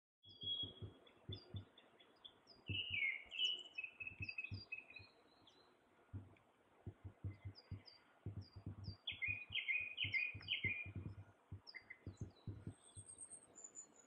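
Small songbirds singing and calling in short high chirps and twittering phrases. Irregular low thumps run underneath and are the loudest sounds.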